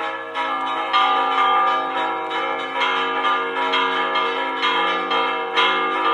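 Church tower bells ringing a repique, the rapid festive peal, with quick strokes following each other and their tones overlapping.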